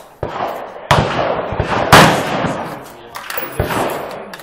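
Two AR-15 rifle shots about a second apart, the second louder, each trailing off in a long echo.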